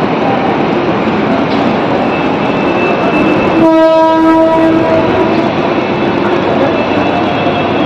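A suburban electric local train's horn sounds once, a single steady pitched blast of about a second and a half, starting about three and a half seconds in. It sits over a steady loud din of the station and its standing trains.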